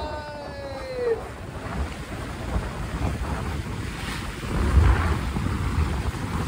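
Wind buffeting the microphone over water rushing along the hull of a sailboat under way, getting louder about halfway through.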